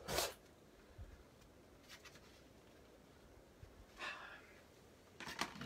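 A paintbrush scrubbing paint onto a stretched canvas in one short scratchy stroke right at the start, then quiet room tone with a soft breath-like sound about four seconds in.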